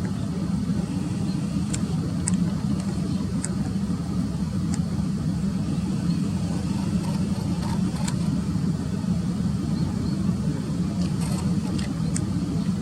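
Steady low rumble of distant road traffic, with short high bird chirps heard several times over it.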